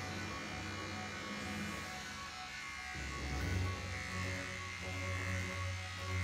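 Electric hair clippers buzzing steadily as they cut through thick curly hair.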